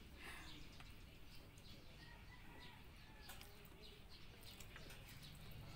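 Near silence: quiet room tone with faint bird calls and a few soft clicks.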